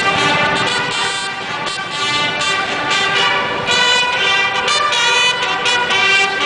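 Several military bugles playing a march together, a run of short notes mixed with longer held ones.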